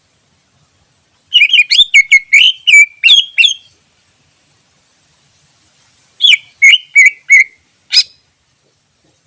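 Greater green leafbird (cucak ijo) singing: a quick run of about nine sharp, chattering whistled notes, a pause of a few seconds, then a shorter run of about five notes and one last sharp note.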